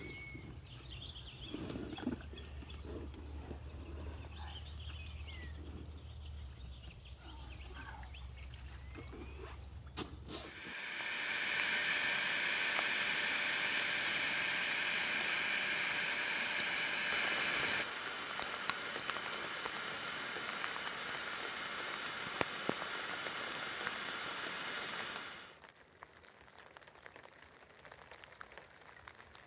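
Rain falling, starting about a third of the way in as an even hiss that is loudest for several seconds, then a slightly quieter patter with the odd sharper drop, easing to light rain near the end.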